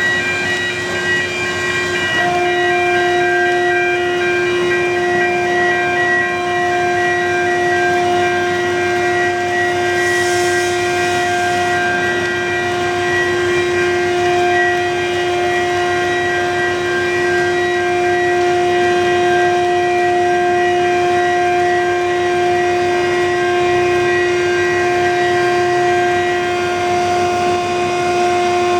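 Steady industrial noise from a tilting rotary aluminium-melting furnace plant in operation: a constant loud rushing with a steady droning tone that sets in about two seconds in. A brief high hiss comes about ten seconds in.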